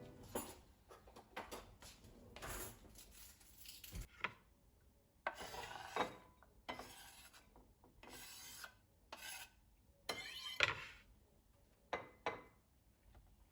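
Kitchen food-prep handling: a series of short scraping, rubbing strokes with a few light clicks in between.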